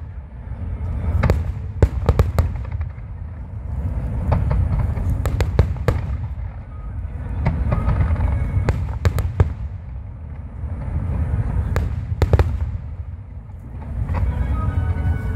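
Aerial fireworks going off: many sharp cracks over a low rumble of shell bursts that swells and fades in waves about every four seconds.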